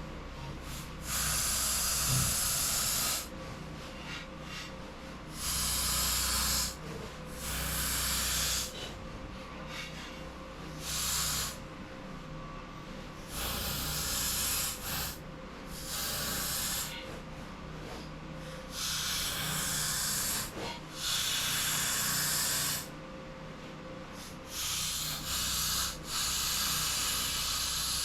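Electric arc welding laid down in short beads: about ten bursts of crackling hiss, each a second or two long, starting and stopping sharply, as the truss is welded onto a rear axle housing. A steady low hum from the generator powering the welder runs underneath.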